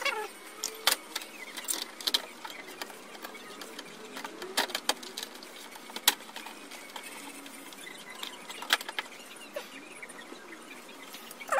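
Irregular sharp clicks and knocks of a black plastic cover being fitted against the steel back chassis of an LED TV during reassembly.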